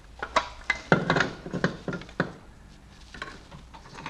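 Hard metal knocks and clatters as a water pump is worked loose and pulled out of a Renault 1.5 dCi diesel engine. A quick run of sharp knocks comes in the first two seconds, loudest about a second in, and a few lighter clicks follow near the end.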